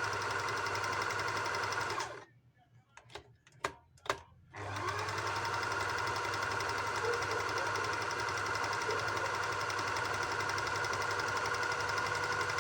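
Wertheim electric sewing machine running steadily, stitching decorative pattern stitches. It stops about two seconds in, a few light clicks follow, and then it starts again and runs on.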